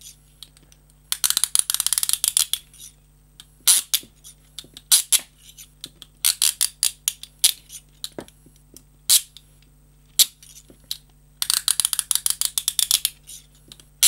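Peerless Model 301 handcuff ratcheting: the toothed steel bow is swung through the lock case, its teeth clicking past the spring-loaded pawl. Two quick runs of rapid clicks, about a second in and near the end, with slower single clicks between. The sound is full and solid ("satt"), from firm spring tension and a tight lock case with little spare room.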